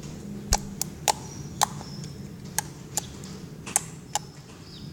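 Soft homemade slime being squeezed and poked, giving about eight sharp, irregular clicking pops from the air bubbles trapped in it; a loud slime sound.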